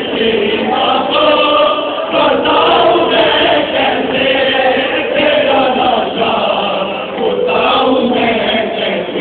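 Crowd of men chanting together in a Muharram mourning lament, many voices overlapping into one dense, loud chant.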